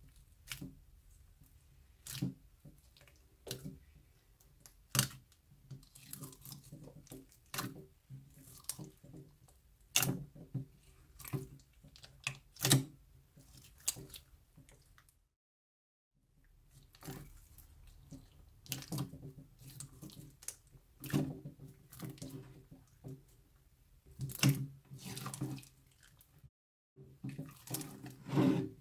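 Hands squishing, stretching and pressing slime, giving irregular wet, sticky clicks and pops as air pockets burst. The sound cuts out completely twice for a moment.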